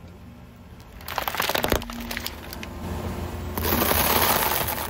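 A car tyre rolls over and crushes things on asphalt. About a second in, a plastic bag of small items crackles and snaps under it for under a second. From about three and a half seconds in, a block of dry instant noodles makes a loud, dense crunch as it shatters under the tyre.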